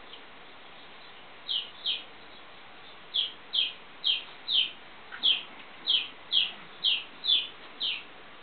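A bird chirping repeatedly: about a dozen short, falling chirps, roughly two a second, starting about a second and a half in.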